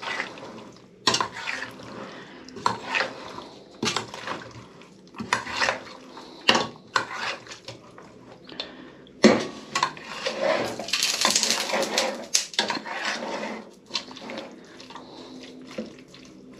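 A metal spoon clinking and scraping against a stainless steel pot while fish and vegetables freshly dressed with hot oil are stirred thoroughly: irregular knocks, with a longer run of scraping a little past the middle.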